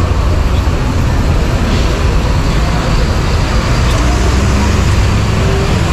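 Steady low rumble of road traffic with faint voices behind it.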